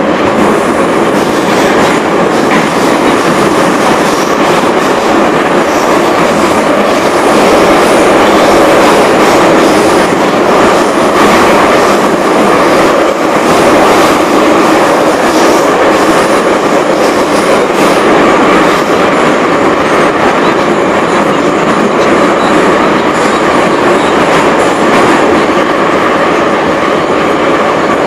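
Moscow Metro 81-717/714 train running, heard from inside the car: a steady, loud rumble of wheels on the rails, with scattered clicks as the wheels cross rail joints.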